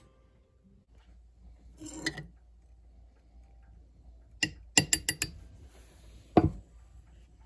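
A brief rustle, then a quick run of four or five sharp clicks and a single knock a second later: small hard objects being handled and set down.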